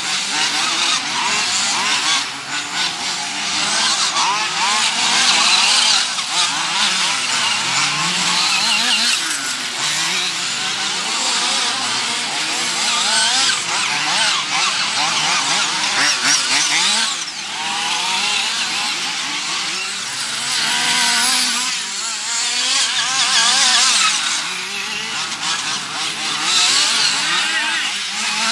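Several radio-controlled off-road model buggies with small two-stroke engines racing. Their high-pitched engines rev up and down over and over, overlapping one another.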